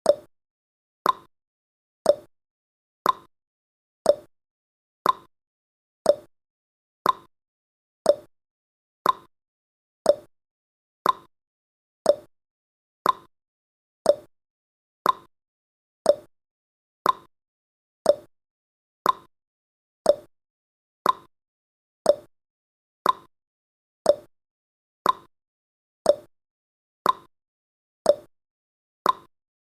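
Countdown timer's ticking sound effect: a sharp, clock-like tick once every second, each dying away quickly.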